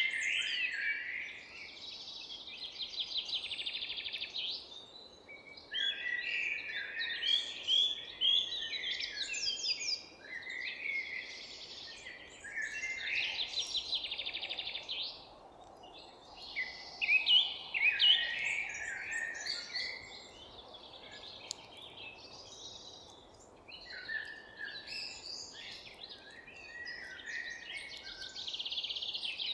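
Several songbirds singing and chirping at once in overlapping bouts, some phrases fast trills, with brief lulls, over a faint steady background hiss.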